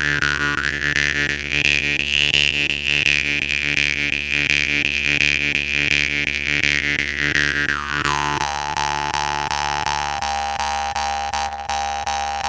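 Jaw harp (khomus) played on a steady drone with even, repeated plucks. The mouth-shaped overtone melody glides up to a bright high whine, holds there, then sweeps back down about two-thirds of the way through.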